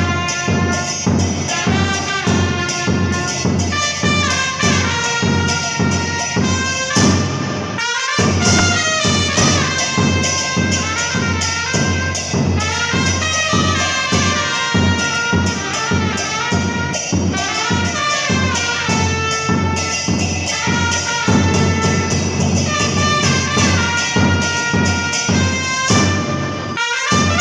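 Two trumpets playing a cumbia melody over a steady beat on a bombo murguero. The music breaks off briefly about eight seconds in and again near the end.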